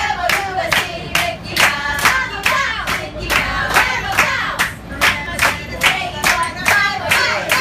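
A group of people clapping together in a steady rhythm, a little over two claps a second, while singing along in unison.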